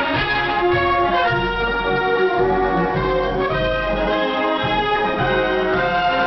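Instrumental brass and orchestral music playing a North Korean revolutionary song, with held brass notes, received over shortwave radio so the sound is thin with the top end cut off.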